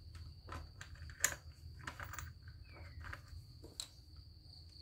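Light plastic clicks and taps of a brush cutter's air filter cover being pressed onto the carburettor, with a sharper snap a little over a second in and another about four seconds in.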